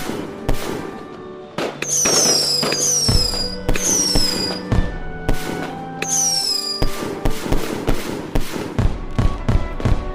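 Fireworks going off: a string of sharp bangs and crackles, growing denser near the end, with several short high whistles that fall in pitch. Music plays underneath.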